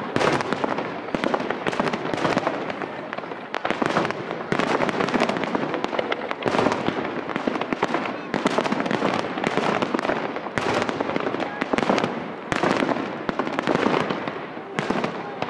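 Fireworks display: aerial shells bursting in quick succession, a dense, irregular run of bangs.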